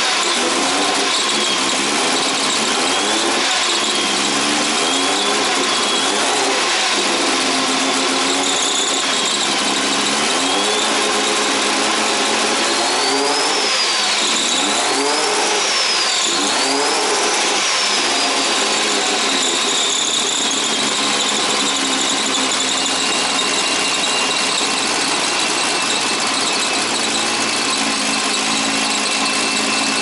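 Nissan RB25DET turbocharged straight-six running with a misfire, revved up and down by hand at the throttle three times about halfway through. A high belt squeal rises and falls with the revs, which the owner puts down to coolant dripping onto the drive belts.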